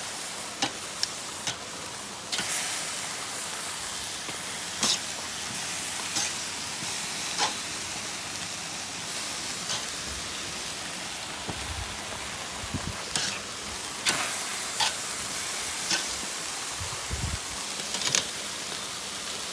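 Teriyaki-marinated chicken thighs sizzling on the grate over hot charcoal, with scattered sharp clicks of metal tongs on the grill as pieces are turned. The sizzle swells a couple of seconds in and again a little past the middle.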